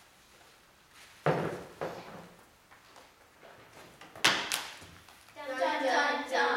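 A few sharp knocks of stage props being handled, then near the end a voice holding one long steady note.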